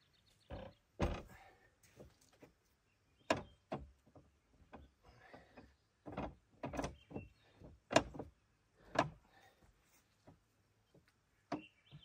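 Irregular thumps and clunks, about a dozen, the loudest about a second in and around eight and nine seconds: a log being shifted and set in place on the bed of a portable bandsaw mill.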